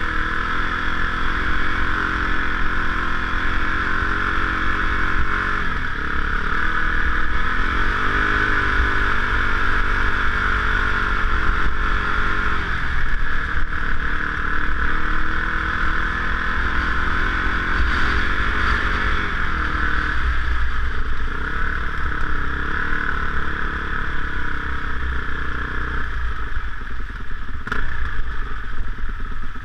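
Dirt bike engine running under way, heard from the bike itself as it crosses rough grass; the revs rise and fall several times as the throttle is opened and closed, over a steady low rumble.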